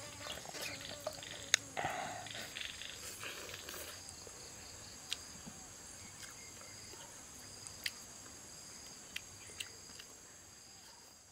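Steady high-pitched chorus of insects, several even tones held throughout, with a few sharp clicks scattered through it.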